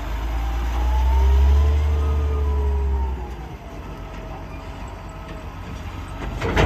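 Heavy diesel earth-moving machine running under load, with a deep low engine sound for the first three seconds that eases off and comes back near the end, and whines that rise and fall in pitch. A sharp knock sounds just before the end.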